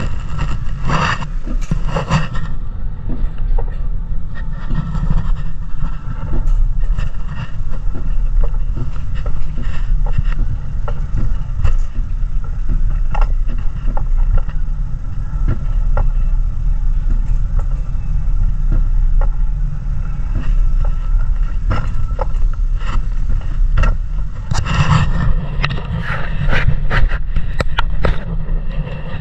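Gravity-driven mountain coaster sled running down its steel tube rails: a steady low rumble from the wheels, with scattered rattles and clacks. Heavier clattering comes in the first couple of seconds and again about 25 seconds in.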